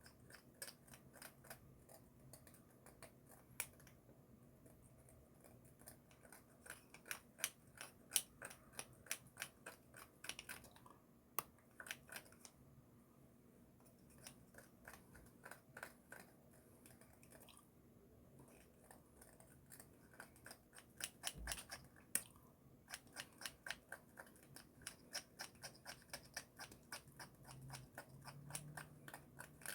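Crunchy Cheetos being chewed close to the microphone: runs of crisp crunches, a few a second, with short pauses between the runs. The snacks are still crunchy after being held in the mouth for about a minute.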